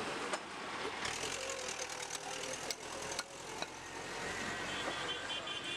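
A motor vehicle's engine running close by on the road, a steady noisy drone that builds about a second in and stays, with a few sharp knocks of a butcher's cleaver on a wooden chopping block.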